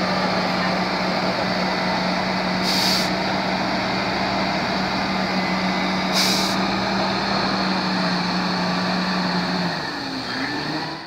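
Heavy multi-axle modular transporter running under load, a steady diesel drone and hum, broken twice by short sharp hisses of air about three seconds apart. The hum stops near the end.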